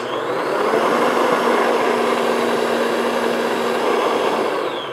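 Electric stand mixer running with its paddle attachment, beating vanilla into thick whipped egg-and-sugar batter in a glass bowl: a steady motor whir that spins up at the start, then winds down and stops near the end.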